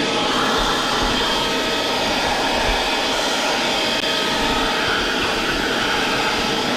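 Lyrovo LY3301 handheld car vacuum cleaner running steadily, a constant motor whine over rushing air.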